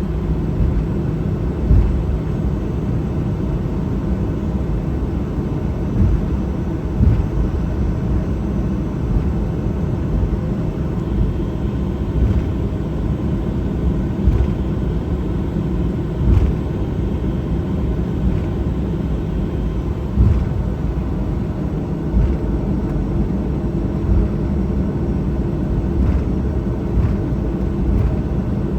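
Cabin noise inside a Boeing 737-800 taxiing on the ground: its CFM56-7B engines running at low power as a steady rumble with a low hum, with irregular thumps as the airliner rolls over the taxiway.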